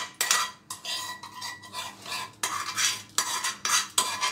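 A metal spoon scrapes thick cooked mango pulp out of a nonstick pan and stirs it through a steel mesh strainer. It makes quick, repeated scraping strokes, about two or three a second.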